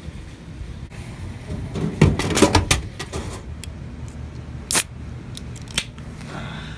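A soda can clattering down into a vending machine's delivery bin and being taken out. Then a sharp snap as the aluminium can's ring tab is cracked open, with a smaller click about a second later.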